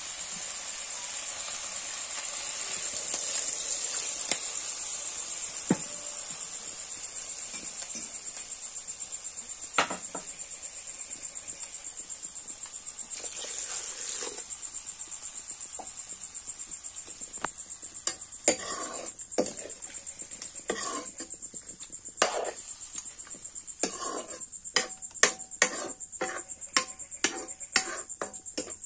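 Crickets chirping in a steady, fast-pulsing high trill throughout. Around the middle, water is poured into a hot wok of chicken, and in the last third a metal spatula knocks and scrapes against the wok in a string of sharp clicks.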